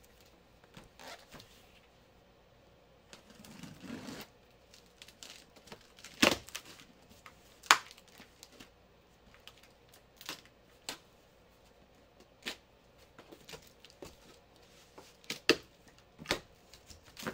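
A cardboard shipping box being opened by hand: packing tape slit and torn, with cardboard flaps rustling and scraping. Irregular sharp snaps and knocks come through it, the loudest about six and eight seconds in and twice near the end.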